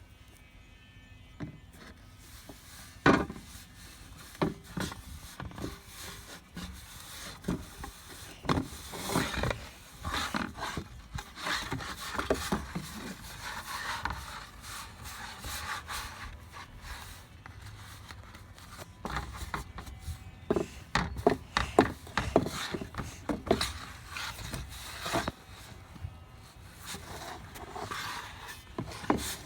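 Kinetic sand being worked by hand or tool: irregular scraping and crumbling with sharp, uneven clicks.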